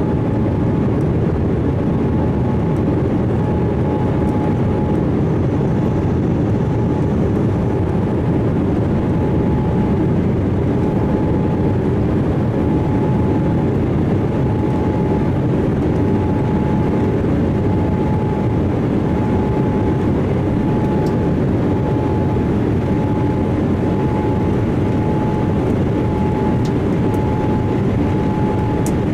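Steady jet noise of a Boeing 787-8 airliner: an even, low rushing sound with a faint high whine held throughout.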